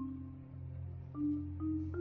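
Background music: a marimba plays slow single struck notes over a held low bass tone, with three notes rising in pitch in the second half.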